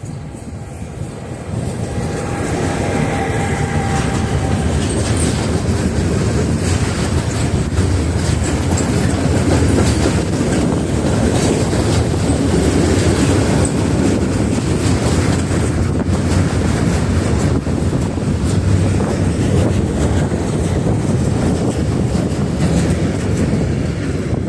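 A train passing close by at low speed: a steady rumble of wheels on the rails with the clickety-clack of the rail joints, building over the first two seconds and then holding.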